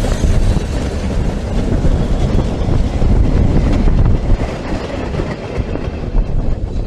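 Narrow-gauge steam train passing close by and pulling away: the locomotive Prince, then its wooden carriages rolling over the track in a steady low rumble, with light wheel clicks in the second half.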